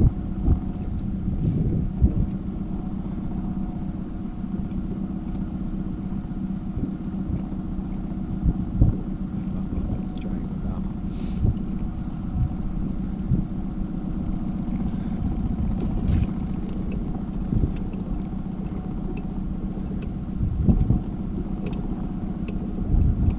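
A boat motor running steadily at trolling speed, a constant low drone. Wind buffets the microphone in short thumps now and then.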